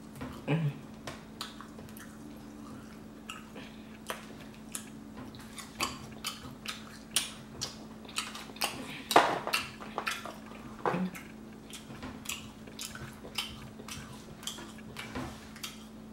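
Close-up eating sounds: many irregular sharp clicks and crackles as grilled shrimp are peeled and handled on wooden skewers over a plastic plate, mixed with chewing. A steady low hum runs underneath.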